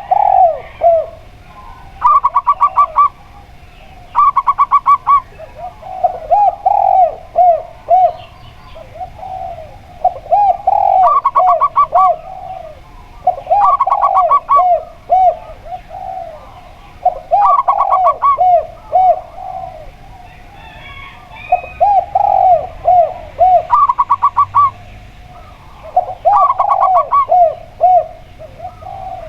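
A zebra dove and a spotted dove cooing in turn, over and over. Short bursts of rapid, higher rolling notes alternate with groups of three or four lower, arched coos.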